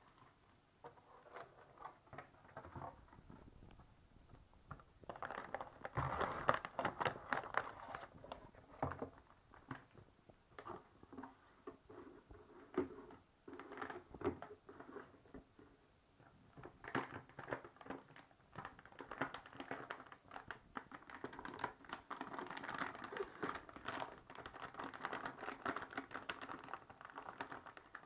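Hands handling a boxed computer motherboard and its packaging: irregular rustling, taps and small clicks, busiest about a quarter of the way in and again in the last third.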